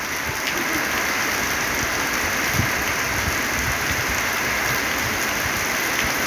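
Heavy rain falling steadily on a corrugated metal roof and the ground, with water streaming off the roof's edge.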